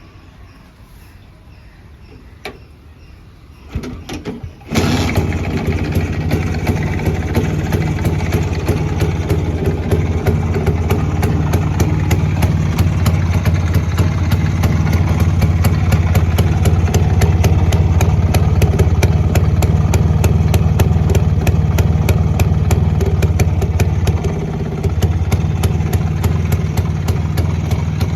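Rajdoot RD 175 motorcycle's two-stroke single-cylinder engine in mostly stock condition: after a brief sputter it starts about five seconds in and then idles steadily, with a slight drop in level near the end.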